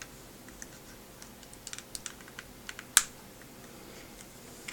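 Small plastic parts of the iWear AV230 XL video eyewear being handled and pried at, giving scattered light clicks and ticks, with one louder click about three seconds in.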